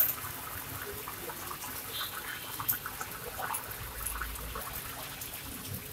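Hot oil sizzling in a wok as papads fry, with scattered small crackling ticks. A sharp click at the very start, the loudest sound.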